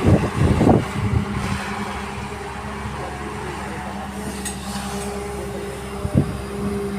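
Excavator's diesel engine running steadily, with a few heavy thuds in the first second or so and one more about six seconds in.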